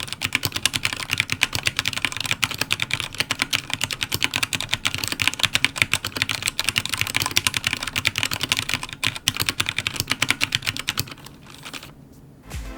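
Fast, continuous typing on a Royal Kludge RK84 mechanical keyboard fitted with Cherry MX Black switches: a dense run of key clacks that stops about eleven seconds in.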